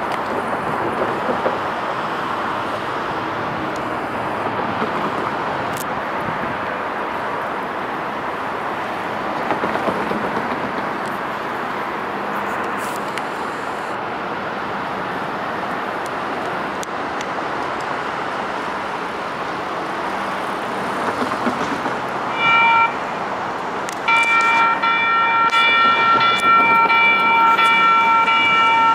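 Sacramento light rail train running steadily through the grade crossing. About 22 seconds in a short, high-pitched warning tone sounds, and about two seconds later a louder one starts and holds on.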